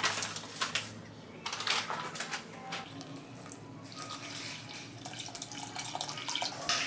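Water pouring from a small metal pot into a stainless steel bowl of starch while a wire whisk stirs and knocks against the bowl, mixing the batter. There are a few sharp taps and clinks in the first second as starch is tipped in from a glass jar.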